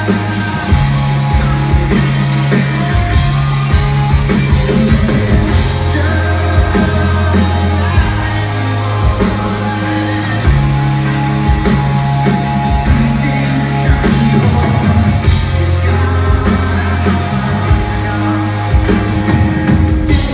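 Live rock band playing: electric and acoustic guitars, bass guitar and drum kit, with held bass notes that change every couple of seconds under steady drum hits.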